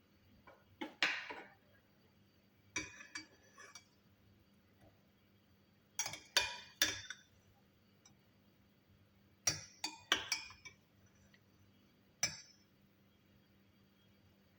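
Glassware and utensils clinking: five short clusters of sharp knocks, each with a brief ring, a few seconds apart.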